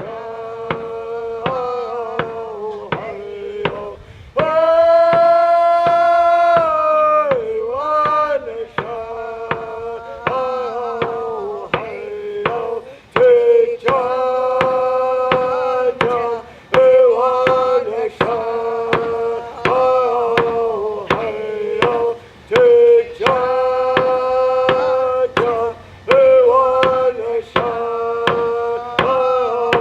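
A chanted song in a high voice that holds long notes, over a drum beaten in a steady rhythm.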